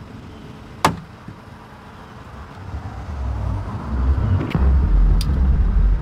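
A car hatchback's latch clicks open sharply about a second in. From about three seconds in, a deep low rumble builds up and becomes the loudest sound.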